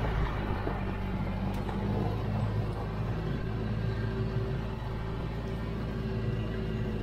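Side-by-side utility vehicle's engine running steadily as it drives along a dirt trail, a constant low hum.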